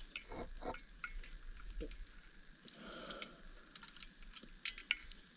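Underwater ambient sound recorded by a diving camera: scattered, irregular faint clicks and crackling over a low hiss, with no bubble noise from the closed-circuit rebreathers.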